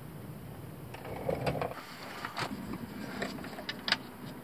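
A few scattered light clicks and knocks from hand tools being handled, with a soft shuffling about a second in.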